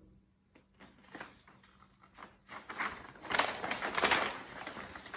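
Large paper pages of a big book rustling as a page is lifted and turned: a few light ticks and rustles at first, then a loud rustle from about three seconds in.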